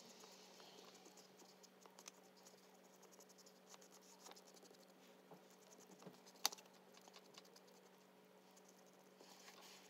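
Faint scratching of an oil pastel stroking over paper as outlines are drawn, with one sharp click about six and a half seconds in.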